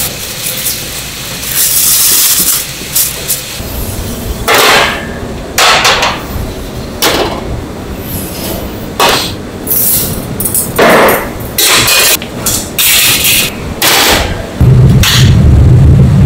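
Stainless trays and pans clanking in a string of short, separate metallic knocks, then near the end a loud steady low roar as the gas broiler's burners come on.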